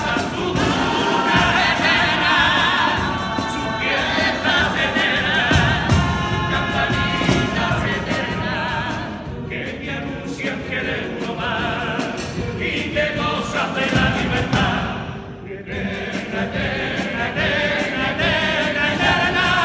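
Male choir singing a popurrí together, with guitar accompaniment; the voices waver with vibrato. The singing breaks off briefly about fifteen seconds in, then comes back in.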